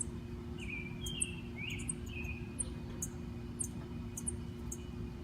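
Sparrows chirping: short, high chirps repeating irregularly about twice a second, with a few lower, sliding chirp calls about one and two seconds in, over a steady low hum.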